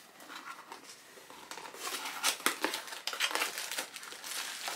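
Cardboard boxes and brown paper packing being rummaged through and pulled about: irregular crinkling and rustling, sparse at first and busier and louder from about two seconds in.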